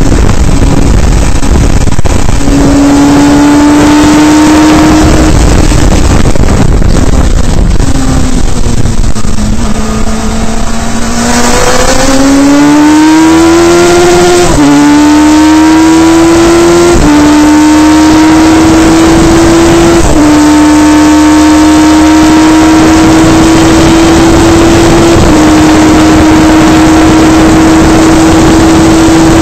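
Onboard sound of a Radical SR3 race car's motorcycle-derived four-cylinder engine at speed. The revs fall as the car slows from about five to ten seconds in, then climb hard through four quick upshifts, each a sudden drop in pitch, the last about twenty-five seconds in.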